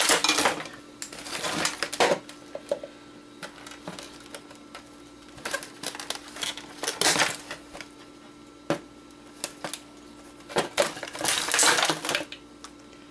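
Wire snips cutting wiring and wires being pulled loose from a plastic electronics housing: several bursts of sharp clicks, snaps and rattling plastic with quieter pauses between.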